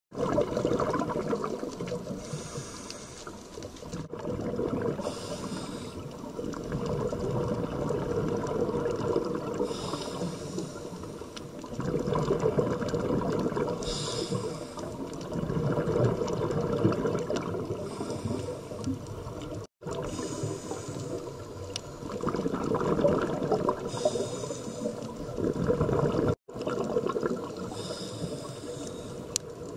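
Scuba diver breathing through a regulator underwater: a hiss on each inhale every few seconds, alternating with bubbling exhaust. The sound drops out briefly three times.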